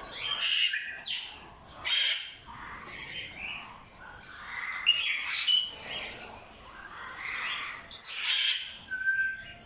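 Captive parrots in an aviary squawking and calling: several loud, harsh squawks and gliding whistled calls, the loudest about two and eight seconds in, and a short whistled note near the end.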